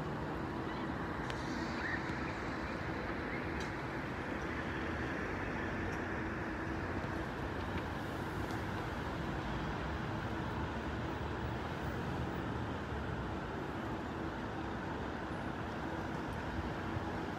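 Steady city road traffic: cars and buses passing on a boulevard, an even wash of noise with a faint steady hum underneath.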